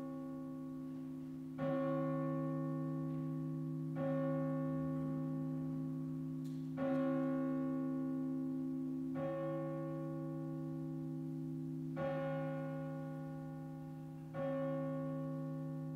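Church bell tolling slowly, struck about every two and a half seconds, six strikes in all. Each strike rings on and overlaps the next.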